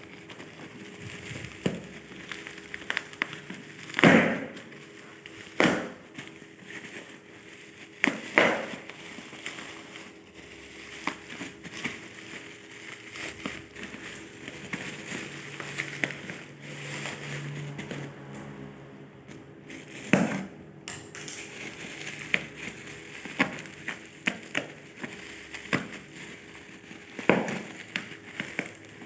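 Packaging being handled during an unboxing: plastic and paper rustling and crinkling, with a few louder sharp crackles spread through.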